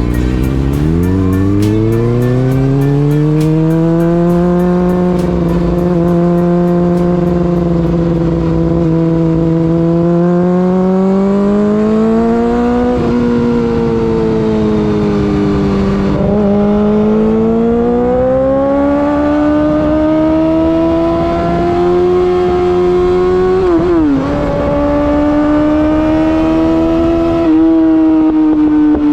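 2019 Yamaha R6's inline-four engine through an Akrapovic Evolution racing exhaust, heard on board: revs climb quickly at the start, then hold and rise slowly under throttle, with a few brief dips in revs where the throttle is rolled off or a gear is changed.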